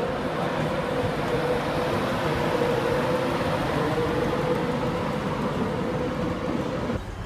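Virgin Trains InterCity 225 electric train moving past along the platform line: a steady rumble of wheels with a held mid-pitched whine, cut off abruptly near the end.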